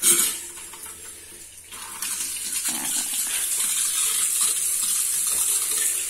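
Water from a newly fitted bathroom washbasin tap, turned on for its first test, gushing out suddenly and then running steadily into the ceramic basin. The flow grows louder about two seconds in and holds steady.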